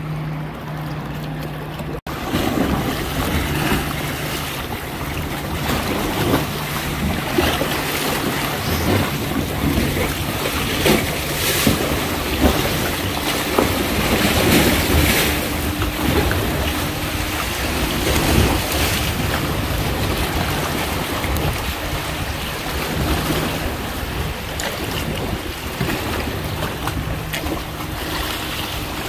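Wind buffeting the microphone over sea water splashing and lapping around a kayak, with a faint low hum that comes and goes.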